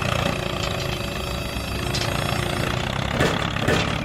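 A small engine running steadily, with two short knocks about three seconds in.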